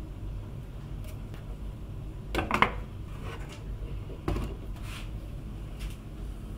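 Plastic handling sounds as a clear plastic storage container is closed with its lid and set on a wooden cutting board: a sharp clatter of clicks about two and a half seconds in, a lighter knock a couple of seconds later and a few faint taps, over a low steady hum.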